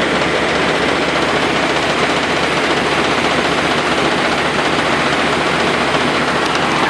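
Nissan RB20DET turbocharged straight-six running with a misfire on cylinders 4 and 5, which gives a rapid, uneven pulsing.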